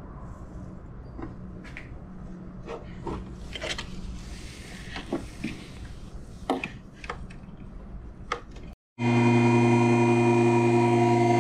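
Small metal and plastic clicks and taps from hand tools working on the valve cover of a straight-six, over a low shop hum. After a short break about nine seconds in, a loud, steady electric hum with several fixed tones takes over: a two-post car lift's pump motor raising the car.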